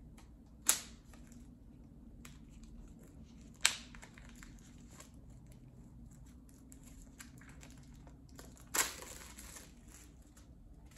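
The wrapping of an Apple AirPods Pro retail box being torn open by hand. Scattered crinkling runs throughout, with sharp snaps about one second and four seconds in and a longer, louder tearing sound about nine seconds in.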